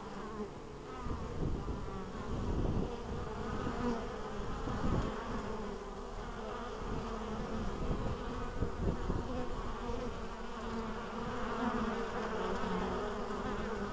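Honeybees buzzing at a hive entrance: many bees in flight at once, with single bees passing close in wavering hums. This is the busy flight of spring foragers bringing in pollen. Bursts of low rumble come and go, making the loudest moments.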